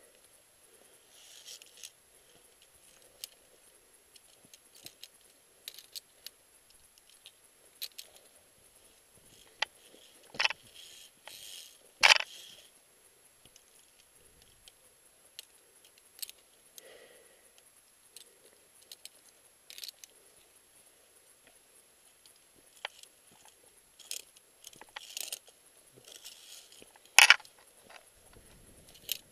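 Scattered metallic clinks and scrapes of via ferrata climbing gear (carabiners and lanyard against the steel cable and rock), with a few sharper, louder clinks: twice about ten to twelve seconds in and once near the end.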